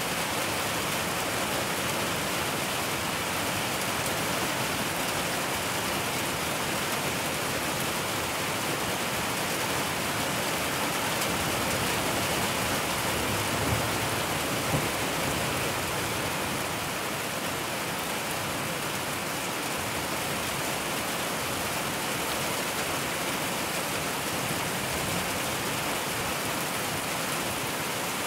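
Steady rain falling, an even hiss of drops, with two brief thumps about a second apart near the middle.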